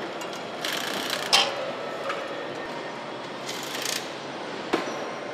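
Car assembly-line noise: a steady factory din with two short hisses, each about half a second long, and sharp clicks of hand tools, the loudest click about one and a half seconds in and another near the end.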